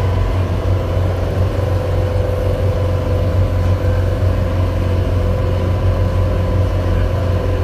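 Boat engine running steadily while the water taxi is under way: a continuous low drone with a steady hum on top.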